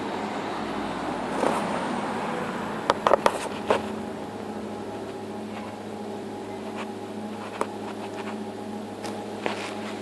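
A steady machine hum, with a quick cluster of sharp knocks about three seconds in and a few single clicks later.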